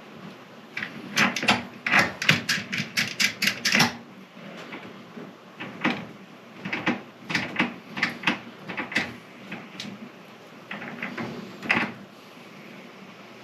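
Quick clicks and taps of small tools and parts being handled on a workbench, in three bursts.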